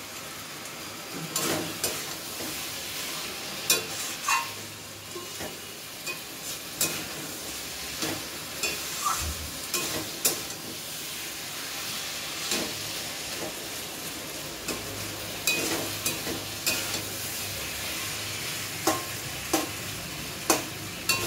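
Pumpkin and fish-head curry sizzling in a metal kadai while a spatula stirs it. The spatula scrapes and clicks against the pan at irregular moments over a steady frying hiss.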